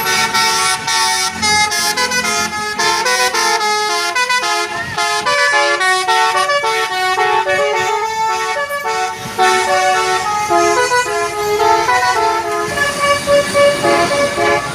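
Indonesian bus 'telolet' horn: a set of multi-tone horns playing a quick melody. Several notes sound together and change pitch in steps a few times a second, thinning out near the end.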